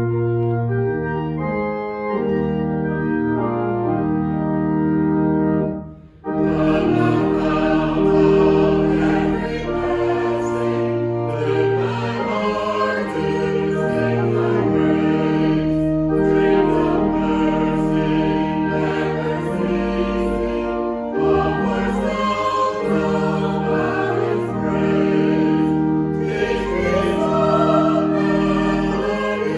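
Organ playing held chords; about six seconds in, after a brief break, a choir starts singing with organ accompaniment.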